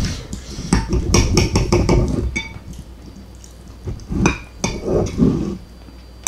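Steel knife and fork clinking and scraping against a ceramic bowl while cutting a steak: a quick run of sharp clicks for the first couple of seconds, then a few softer knocks.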